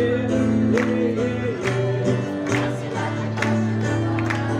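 Live acoustic guitar music with a wavering sung melody over held chords, and sharp beats falling roughly once a second.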